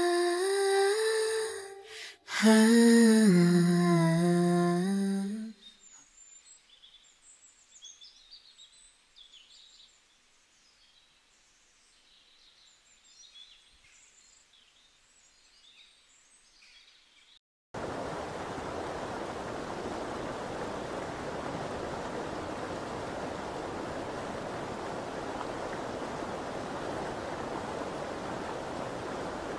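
The last notes of a hummed or sung melody fade out about five seconds in, followed by faint bird chirps over near quiet. Then, from a sudden cut, the steady rush of a shallow stream running over stones and sand.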